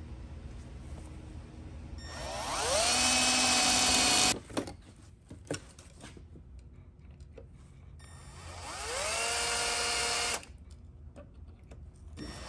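Cordless drill boring holes in a metal bracket held in a bench vise. It makes two runs of about two seconds each, each speeding up to a steady high whine and stopping abruptly, with a few clicks between them; a third run starts near the end.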